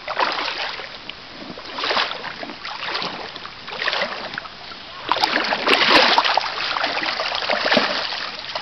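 Shallow stream water splashing in short surges about once a second, then a longer, louder stretch of splashing from about five seconds in.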